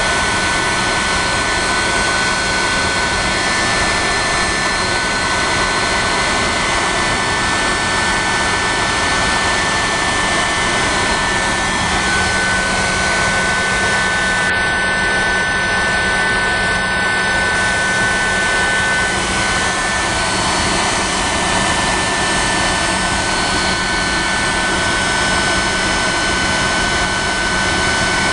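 Westinghouse J34 turbojet running steadily on a test stand: a continuous rush with a steady high whine that grows stronger about halfway through.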